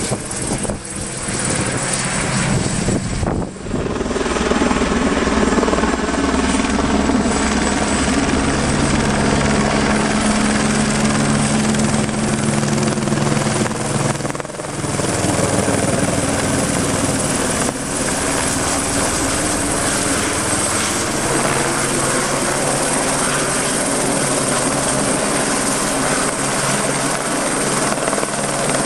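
Helicopter flying low overhead with a concrete bucket slung beneath it: steady rotor noise with a thin high turbine whine on top. The level dips briefly about three seconds in and again about halfway.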